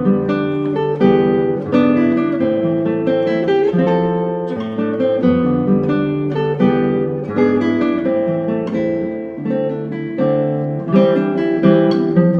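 Background music: an acoustic guitar picking and strumming a steady chord progression.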